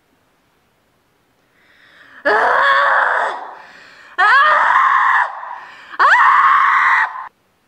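A woman screaming in distress three times, each cry about a second long, the second and third sweeping upward in pitch.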